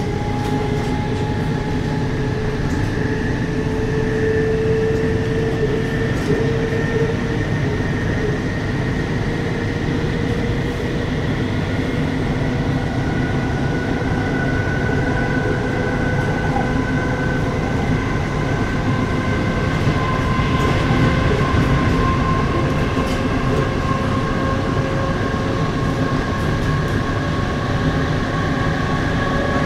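Inside a British Rail Class 455 electric multiple unit under way: the steady rumble of wheels on track under the whine of the traction motors. The whine's tones slowly rise in pitch as the train gathers speed.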